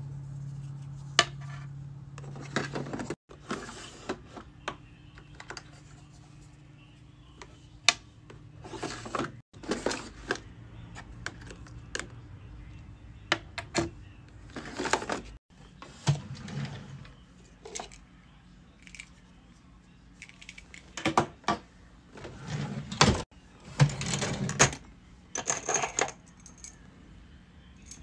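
Metal key rings and keychain parts clinking and tapping as they are taken from plastic storage drawers and set down on a table, mixed with the clack of the plastic drawers: a string of separate sharp clicks and short clatters.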